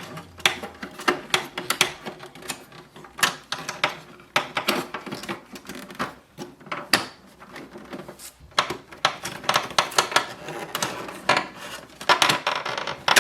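Irregular plastic clicks, taps and rattles from an Epson EcoTank ET-2400 printer's casing as it is handled and lowered shut, with a louder run of clicks near the end.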